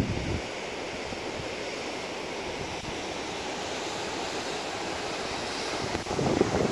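Mountain creek cascades rushing over granite, a steady even roar of water. About six seconds in, wind gusts buffet the microphone with rough low rumbling.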